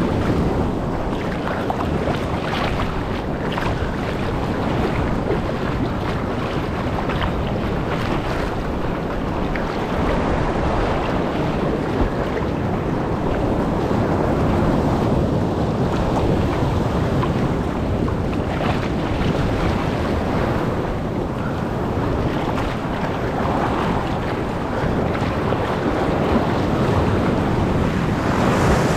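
Ocean surf washing continuously against a rocky shore, a steady rush of water, with wind buffeting the microphone.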